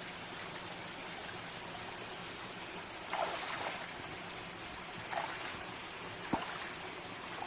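Stream water running steadily over rocks, with a brief louder rush about three seconds in and a short knock a little after six seconds.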